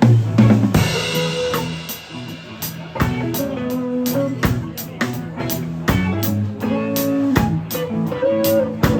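Instrumental break of a reggae song: drum kit with snare rimshots and kick drum over a bass line and guitar chords. It opens with a loud hit and a ringing cymbal that fades over the first second or so.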